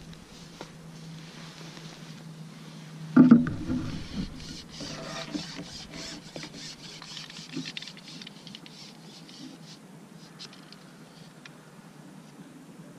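A sudden knock about three seconds in, then scratchy rubbing and rustling from hands gripping a small fish and working the hook out of its mouth, fading toward the end.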